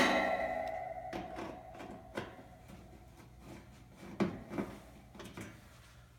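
A metal clank that rings on and fades over about a second and a half, then a handful of light clicks and taps: a screwdriver working the screws out of a range hood's sheet-metal panel.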